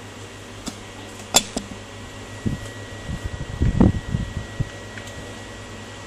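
Hands handling a laptop on a tabletop: a sharp click and a few soft knocks and taps, loudest in a cluster about four seconds in, over a steady fan-like hum. A faint steady high tone comes in about two seconds in.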